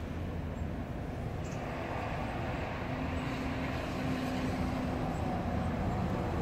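Steady low rumble of street traffic, with a vehicle passing that grows louder from about a second and a half in.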